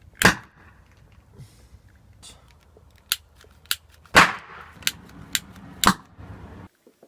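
Oxyhydrogen (HHO) gas from a homemade electrolysis generator igniting in a series of sharp pops, about seven of them, irregularly spaced, the loudest about four seconds in.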